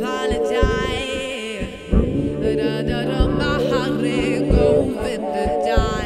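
Live female vocal sung into a microphone over layered, looped vocal harmonies and electric bass, in an experimental electro-funk song, with wavering held notes.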